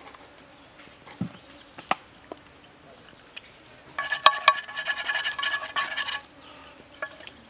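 Wooden chopsticks stirring greens in hot oil in a square metal frying pan, scraping and clattering against the pan for about two seconds midway, so that the pan rings. A few sharp clicks come before it.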